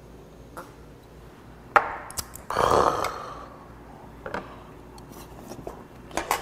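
A glass knocked down on the table, then a loud breathy exhale after a shot of soju, followed by a few light clicks of chopsticks and dishes.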